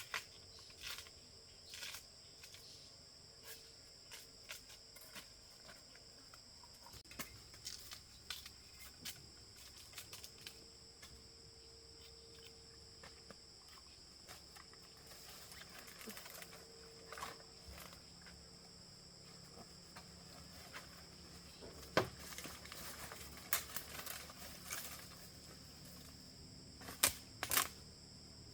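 Insects chirring steadily in high, even tones, with scattered rustles and sharp snaps over them, loudest about two-thirds of the way in and twice near the end.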